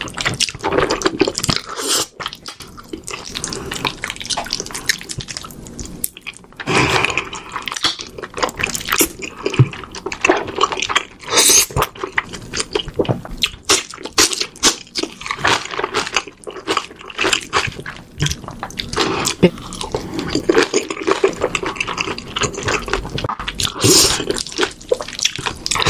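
Close-miked eating sounds: noodles in a thick sauce slurped and chewed, with wet, sticky mouth smacks and clicks following one another irregularly.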